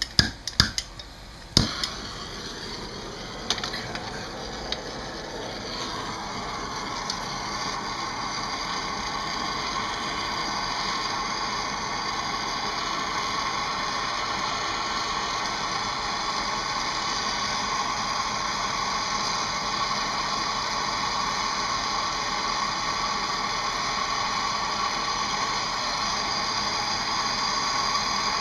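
A few sharp clicks in the first two seconds, then a MAP gas hand torch burning with a steady hiss that builds over the first several seconds and holds. It is heating a seized brake caliper bolt toward cherry red.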